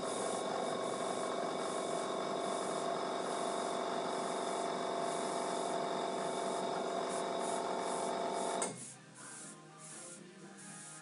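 Airbrush compressor motor running with a steady hum, then cutting off suddenly after about nine seconds, leaving faint background music.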